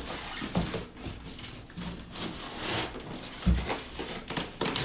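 Packaging being handled as a part is worked out of a tight box: irregular scraping and rubbing with small knocks, and one dull thump about three and a half seconds in.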